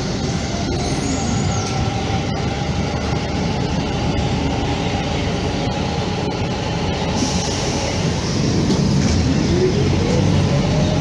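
Train running, with a steady low rumble and rolling noise and a whine that rises in pitch near the end.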